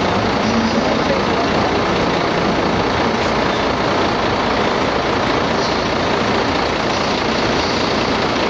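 Steady, loud street traffic noise.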